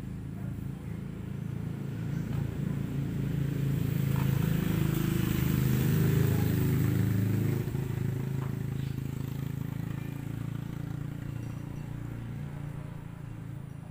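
A motor vehicle passing by: its engine grows louder to a peak about halfway through, then fades away.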